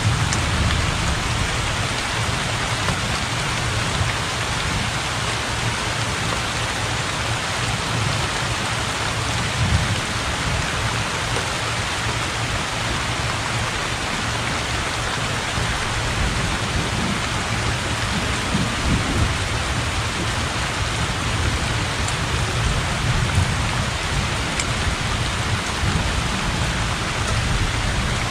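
Heavy rain falling steadily onto open water, a dense even hiss. Low rolls of thunder swell and fade under it several times.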